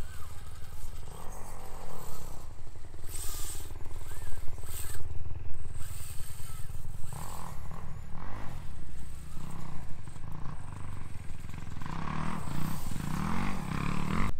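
Dirt bike engines running in the background over a steady low rumble, revving up and down near the end.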